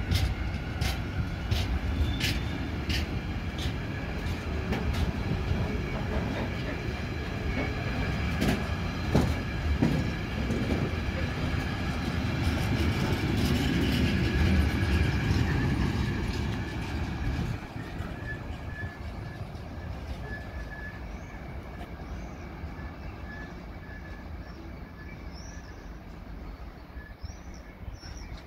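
Freight train of tank wagons rolling past: steady rumble of steel wheels on rail, with sharp clicks as the wheels cross rail joints during the first third. The sound drops suddenly a little past the middle as the train's end goes by, then fades away.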